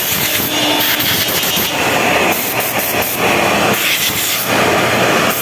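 CNC router spindle and dust extraction running loud and steady while the router mills hinge cup holes in a wood-grain panel. A high hiss cuts in and out about once a second as the bit works.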